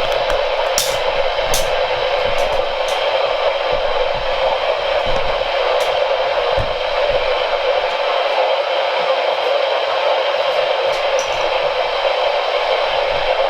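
Steady radio static hiss from a weather radio receiver with no broadcast coming through, with a few sharp crackles in the first few seconds.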